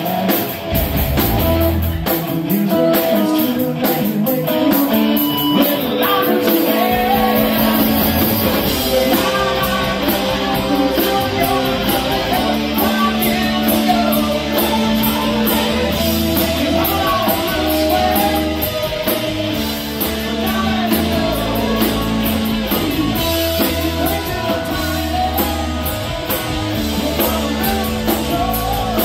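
Live rock band playing southern rock: electric guitars, drum kit, bass and keyboard. The low end fills out about seven seconds in.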